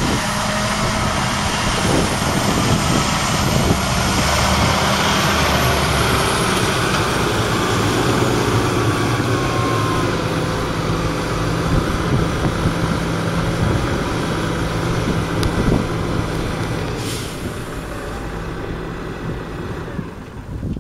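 JCB Fastrac 4220's 6.6-litre six-cylinder diesel running steadily under load, with a strong rushing noise over it. The engine note shifts a couple of times, and the sound fades somewhat near the end.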